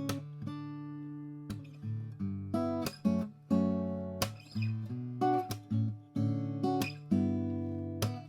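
Atkin L36 acoustic guitar (Sitka spruce top, mahogany back and sides, phosphor bronze light strings) played fingerstyle: plucked notes and ringing chords with a full bass.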